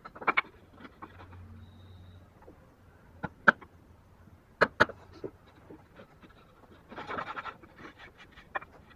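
Hammer striking the handle of a wood chisel as it cuts into a wooden joint: sharp single knocks, several of them in quick pairs, with a short burst of scraping and light clicks about seven seconds in.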